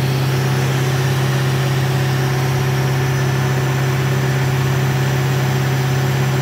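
Engine and compressor of a self-generating nitrogen servicing cart running steadily at about 2,000 RPM, with an even, unchanging drone.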